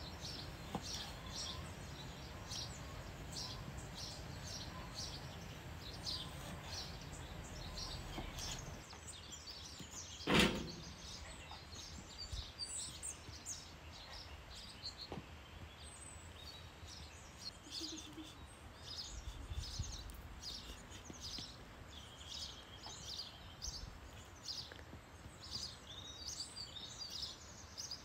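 Small birds chirping over and over, short high chirps a few each second, over a low steady background rumble. A single sharp knock stands out loudly about ten seconds in.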